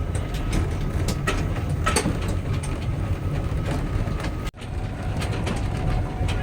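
Small toy train running along its track: a steady low rumble with scattered rattling clicks from the carriages, briefly cutting out about four and a half seconds in.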